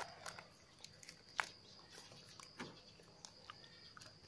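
Faint, sparse crinkles and clicks of a small clear plastic bag being twisted and knotted by hand, over a faint steady high-pitched tone.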